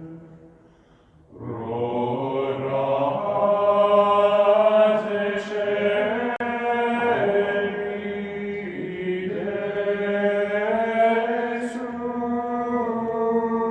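Gregorian chant sung in Latin by a choir, with long sustained notes that change pitch slowly. It begins about a second in, after a brief near-silent gap.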